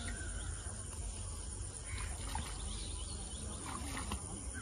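Outdoor ambience: a steady low rumble and hiss, with faint distant voices now and then.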